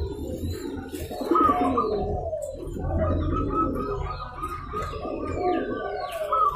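Several zebra doves (perkutut) cooing over one another in overlapping phrases. From about two and a half seconds in, a fast run of short repeated notes joins them, with fainter, higher chirps above.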